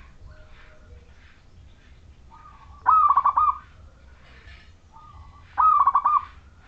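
Zebra dove (perkutut) cooing: two phrases, each a short lead note followed by a quick run of about five rolling coos, roughly two and a half seconds apart. Faint chirps sound in the gaps between them.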